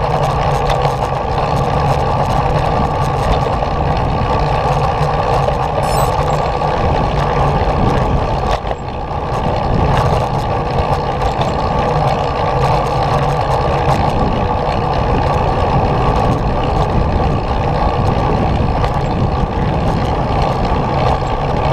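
Steady rumbling road noise of a small vehicle riding along a concrete path, with a brief dip about nine seconds in.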